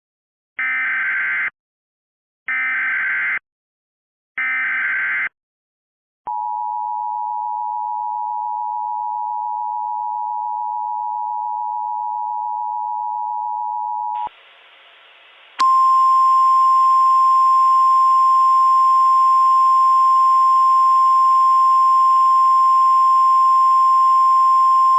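Emergency Alert System SAME header: three short bursts of warbling digital data tones announcing a tornado warning. Then the two-tone EAS attention signal holds steady for about eight seconds. After a moment of hiss, the NOAA Weather Radio 1050 Hz warning alarm tone sounds steadily over radio static.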